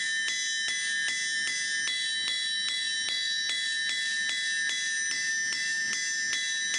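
Forging hammer striking red-hot steel on an anvil in a steady rhythm of about two and a half blows a second. Each blow sets the anvil ringing in sustained, steady metallic tones that overlap from one strike to the next.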